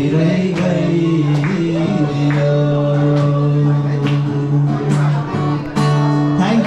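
A man singing a song with instrumental accompaniment, holding long notes over a steady beat.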